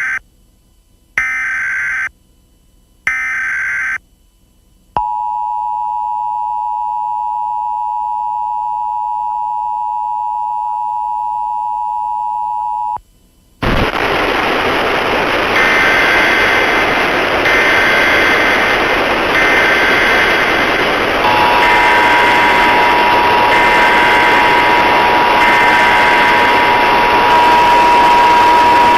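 Emergency Alert System encoder audio: the last of the three data header bursts ending, two more harsh buzzing header bursts, then the steady two-tone attention signal for about eight seconds. The tone cuts off and loud static takes over, with a beep switching on and off about every two seconds; about two-thirds of the way through, a steady tone joins the static.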